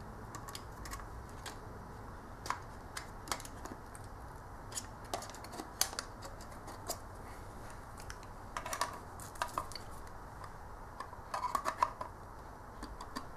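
Quiet, scattered clicks and taps of plastic and metal as a bare 3.5-inch hard drive is worked loose from its external enclosure's rubber bumpers, with two brief flurries of clicks, one about two-thirds through and one near the end.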